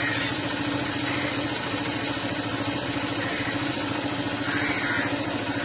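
A vehicle engine idling with a steady, even hum.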